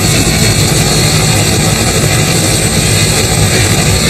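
Helicopter flying low, its engine and rotor running steadily and loudly.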